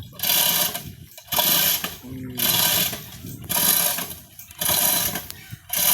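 Heavy excavator machinery working under strain: a loud, harsh mechanical noise that surges and drops about once a second.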